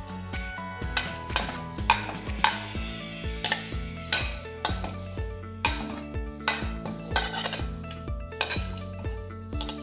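Steel spoon scraping and clinking against a ceramic plate as chopped fruit is pushed off into a pot of milk, over background music with a steady beat.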